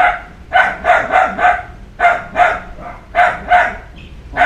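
An animal calling over and over: loud, short, yelping calls in quick runs of two to five, with brief gaps between the runs.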